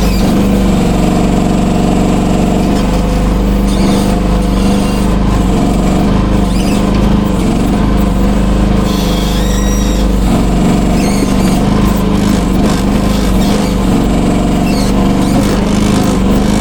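Vicsec VC13Y mini excavator's engine running steadily while it digs, with a short high squeak about halfway through.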